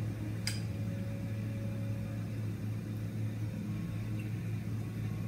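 Steady low hum of room noise, with a single sharp click about half a second in, as a metal spoon taps a small glass bowl of ice cream.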